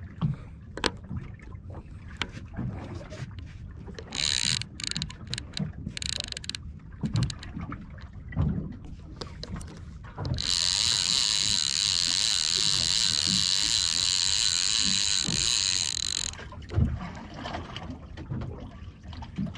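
Avet SX lever-drag conventional reel being cranked by hand: a few short bursts of winding, then a steady whir of the reel's gears for about six seconds, starting about ten seconds in.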